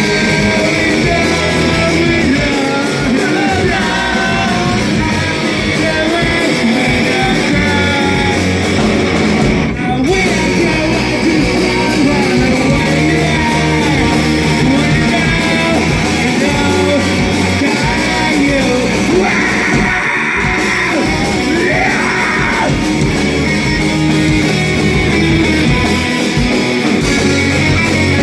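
Rock song with guitar and singing.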